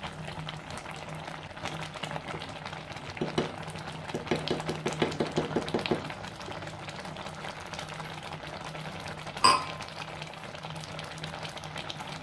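Thick fruit pulp bubbling and popping in a clay pot with the heat off, still boiling from the pot's stored heat, while a wooden spatula stirs through it. A steady low hum runs underneath, and a single sharp knock comes about three-quarters of the way through.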